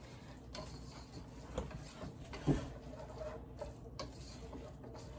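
Silicone whisk stirring a spice mixture in a pot: soft scraping against the pan with a few light taps.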